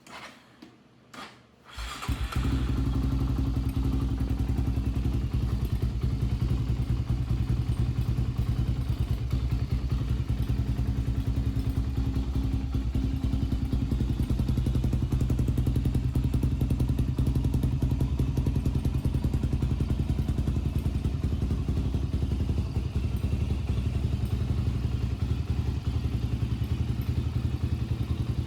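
Honda TRX400EX quad's single-cylinder four-stroke engine, freshly rebuilt, catching about two seconds in after a few knocks and then running steadily.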